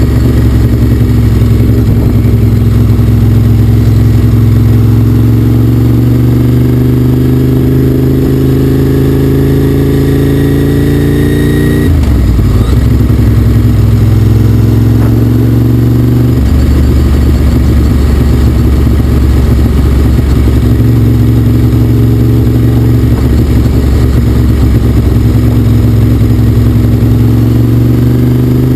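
A vehicle engine running under steady load. Its pitch climbs slowly for about twelve seconds, drops suddenly as it shifts gear, then climbs again near the end.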